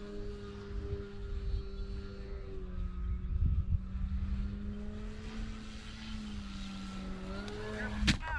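Electric motor and propeller of a large RC aerobatic plane running on 8S power, droning steadily in flight with small dips and rises in pitch. A single sharp crack near the end.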